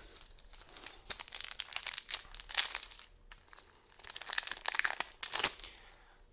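A Force of Will booster pack's foil wrapper crinkling and tearing as it is opened, in two stretches of rustling with a short pause between them.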